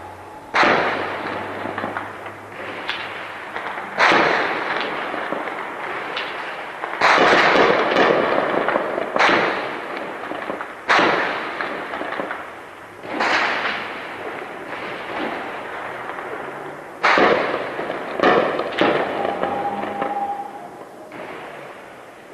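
Heavy gunfire: about eight loud reports and short bursts a few seconds apart, each trailing off in a long echo, with the densest stretch a little past a third of the way in.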